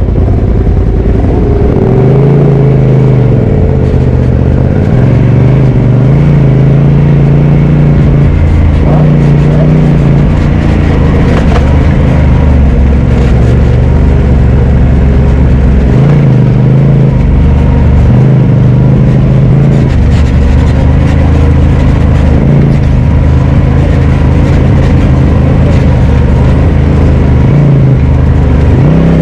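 Polaris RZR Turbo side-by-side's engine running loud on a trail ride, its revs dropping and picking up again every few seconds.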